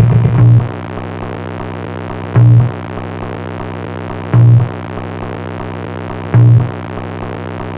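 Industrial electronic noise music: a steady synthesizer drone of stacked tones, with a loud low pulse about every two seconds, three times, after a loud passage cuts off just after the start.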